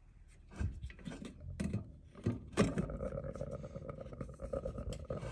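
Brass gallery of an Aladdin oil lamp being seated and twisted onto its burner: a series of metal-on-metal clicks and scrapes, the loudest about two and a half seconds in. After it a steady hum sets in and carries on.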